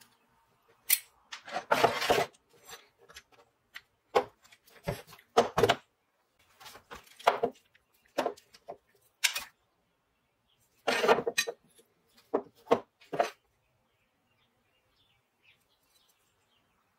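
Metal clinks and knocks as a rusty Goodell-Pratt hand drill is handled and turned over, its gear wheel and frame parts shifting. They come as a dozen or so irregular short sounds, with a couple of longer clattering moments.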